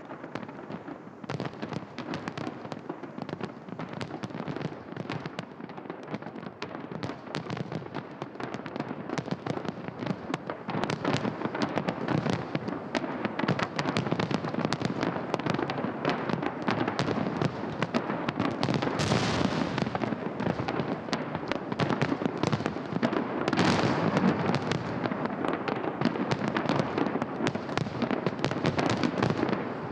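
Fireworks salute going off: a dense, continuous run of crackles and bangs, growing louder about a third of the way in, with two swells of crackling late on.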